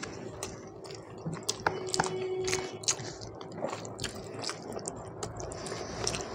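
Close-up chewing of a mouthful of rice and mutton curry, with many wet mouth clicks and smacks, while fingers mix and squish the rice.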